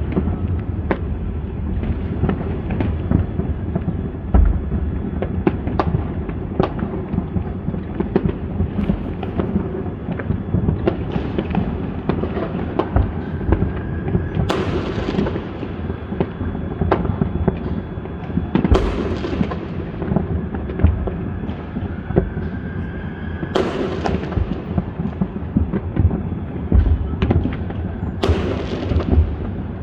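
New Year fireworks going off: a steady low rumble of booms and crackling, with four louder bursts in the second half, a few seconds apart, two of them preceded by a rising whistle.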